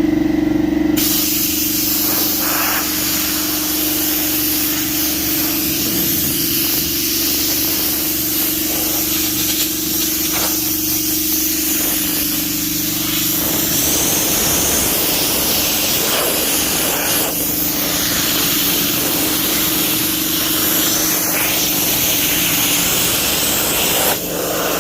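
Compressed air hissing steadily from an air tool, over a steady motor hum; the hiss starts about a second in and cuts off just before the end.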